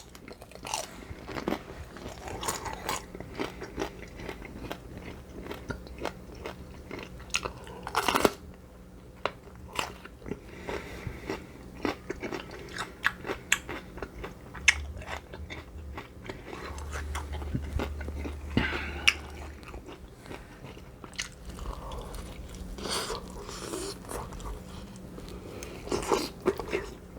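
Close-miked chewing and crunching of crispy baked chicken skin, with many sharp crackling bites and one louder crunch about eight seconds in.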